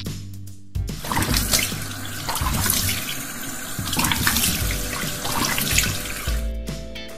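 Tap water running into a sink, starting about a second in and stopping shortly before the end.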